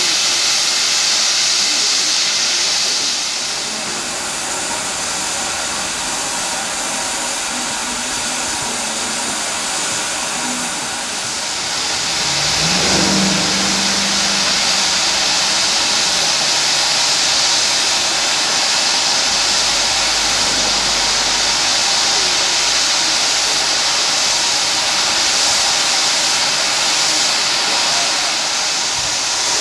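Steam hissing from the standing S&DJR 7F 2-8-0 steam locomotive No. 53808. The hiss eases for several seconds and then rises again, and a brief low tone sounds near the middle.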